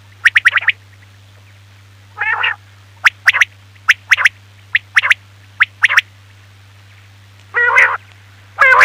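Quail calling: short, sharp, high notes in quick pairs and triplets, broken by three longer, lower, rasping calls, about two seconds in, past seven seconds and at the very end. A steady low hum runs underneath.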